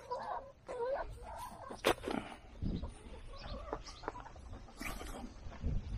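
Hens clucking, with a sharp click about two seconds in and a few low thuds.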